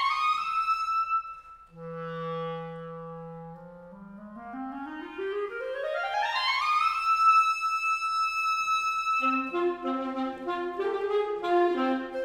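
Solo clarinet sliding smoothly up in long glissandos, each held on a high note, with a low sustained note between the two slides. Near the end, quicker notes from other band instruments join in.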